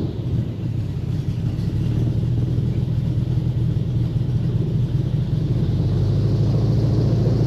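Airboat engine and propeller running at low speed, a steady low drone. It drops back just as it starts, then slowly builds again.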